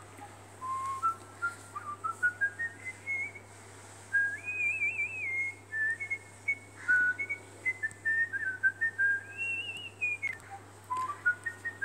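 Whistling: a string of clear, short held notes that climb step by step in pitch over the first few seconds, then move up and down, with two warbled trills.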